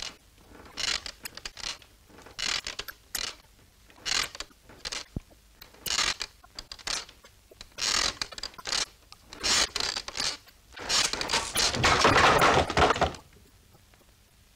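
Cartoon sound effects: a run of short mechanical clicks and scrapes, then a louder rough mechanical noise lasting about two seconds near the end.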